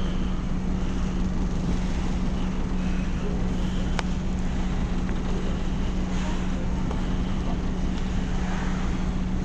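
A passenger ferry's diesel engine running steadily, a constant low hum with a rumble beneath it. A single sharp click sounds about four seconds in.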